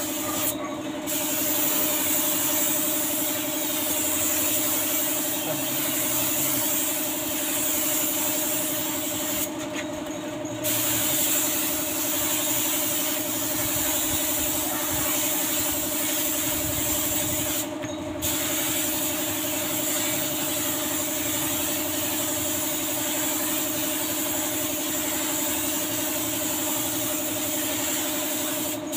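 Compressed-air spray gun hissing steadily as clear coat is sprayed, the hiss cutting off for a moment a few times as the trigger is let go between passes. A steady machine hum runs underneath.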